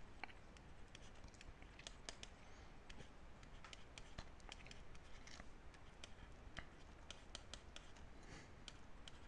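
Faint taps and scratches of a stylus writing on a tablet screen, with scattered short clicks as the strokes are made.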